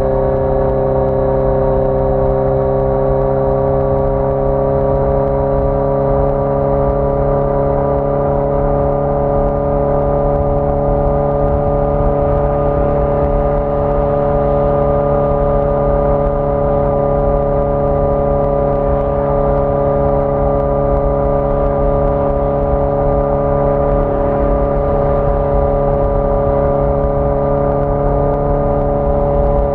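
1981 Yamaha XJ650 Maxim's air-cooled inline-four engine running steadily under way at near-constant revs, its pitch creeping up slightly over the first several seconds and then holding.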